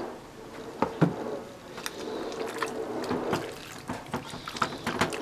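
Hands squeezing and turning marinated sliced beef in a ceramic bowl: wet squishing of meat in liquid with many sharp clicks and knocks, the loudest twice about a second in.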